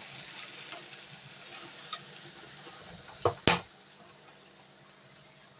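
Sandwich sizzling in a hot electric sandwich toaster, then two sharp clicks a little over three seconds in as the lid is shut and latched; the sizzling is quieter afterwards.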